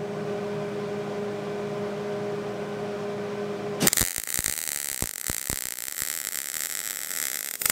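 A steady hum, then about four seconds in a MIG welder's arc strikes and runs as a continuous crackling hiss with sharp pops near its start. The arc is fusing stainless steel exhaust tubing to mild steel tubing with mild-steel filler wire.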